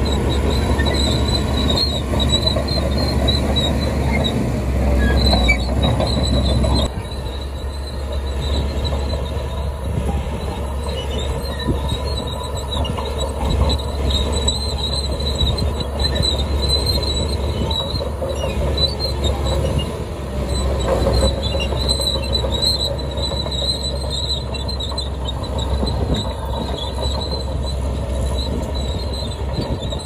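Crawler bulldozer pushing a load of dirt and rock: the diesel engine runs under load while the steel tracks squeal and clank. The sound drops suddenly in level about seven seconds in.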